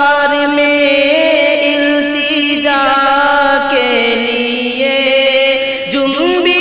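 A solo voice singing an Urdu naat, drawing one word out into a long melismatic phrase, holding notes and gliding smoothly between them.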